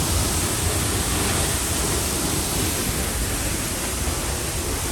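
Steady, loud rush of a waterfall heard at close range from behind the falling water, unbroken throughout.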